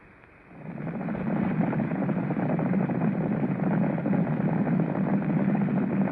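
Racehorses galloping on a track, a dense run of rapid hoofbeats mixed with crowd noise, faded up about half a second in.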